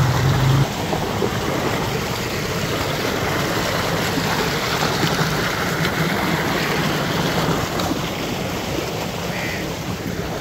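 Water gushing steadily from a solar-powered tubewell's outlet into its pool. A brief low hum sounds in the first half-second.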